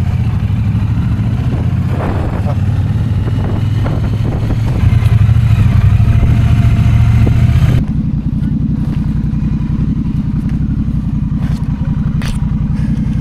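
Motorcycle engine running as the bike rides along with wind noise over the microphone. About eight seconds in the wind noise drops away, leaving the engine running at low speed as the bike rolls slowly.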